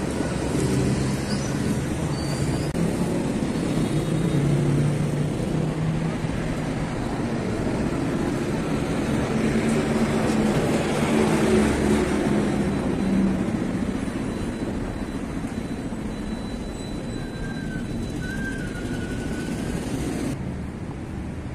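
Street traffic: motorcycle and car engines going by. A vehicle passing close is loudest about halfway through, and the traffic then eases off.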